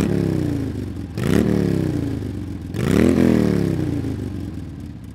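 Motorcycle engine revved three times, each rev climbing quickly and then sinking back slowly.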